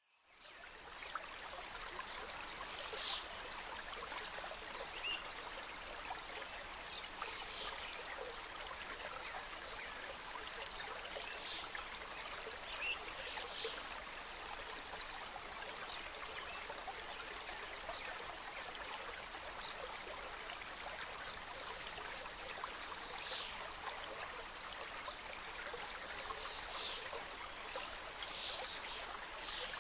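Mountain stream cascading over rocks: a steady, even rush of flowing water that fades in over the first second.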